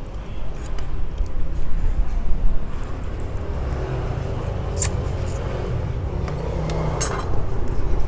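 Steady low rumble that swells over the first couple of seconds, with two light clicks, typical of chopsticks or a spoon against dishes, about five and seven seconds in.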